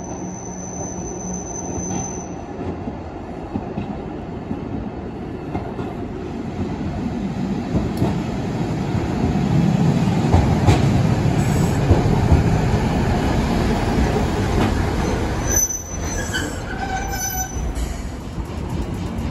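Kumamoto City Tram 8500-series streetcar, an older-style car with nose-suspended traction motors, running in on street track, its running noise growing louder over about ten seconds as it approaches. Near the end come a few high squeals as it draws up close.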